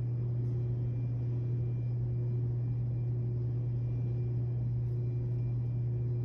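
A steady, unchanging low hum from a running machine, with a few fainter steady tones above it.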